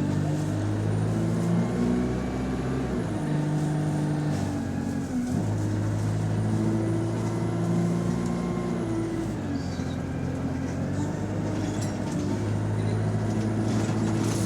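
Bus diesel engine and automatic gearbox heard from inside the passenger saloon, running under load with the engine note stepping in pitch a few times as the gearbox changes gear, with a sharp drop about five seconds in. The bus is in limp mode, with no kickdown.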